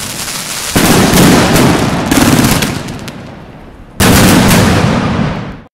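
Fireworks: a volley of rockets going off with dense crackling and bangs. It gets suddenly louder about a second in and again near the four-second mark, then cuts off abruptly.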